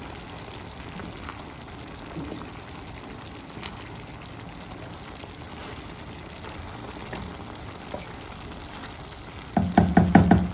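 Cabbage and sardines in tomato sauce sizzling in a non-stick pan while a wooden spoon stirs, with light scrapes and taps of the spoon now and then. A person's voice comes in briefly near the end.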